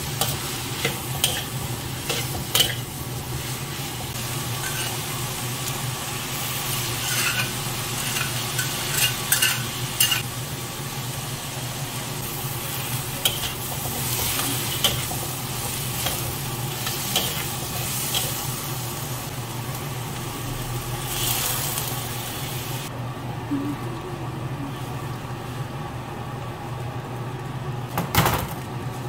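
Bamboo shoots and meat sizzling in a wok while a metal spatula stirs and scrapes, with sharp clicks of the spatula striking the pan. About three-quarters through, the sizzle dies down as the pan goes wet with broth, and a single loud knock of the spatula comes near the end.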